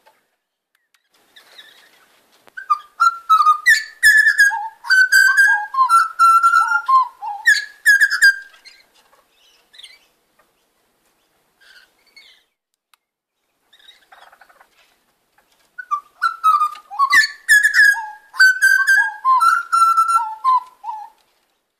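Grey butcherbirds, a family trio, singing together in two bouts of clear notes that slide up and down, each bout about six seconds long and several seconds apart. This is the birds' territorial calling.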